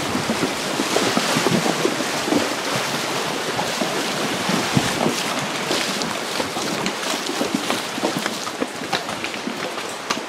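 Rushing stream water and splashing as horses wade across a rocky riverbed, with many short knocks scattered through it and wind buffeting the microphone.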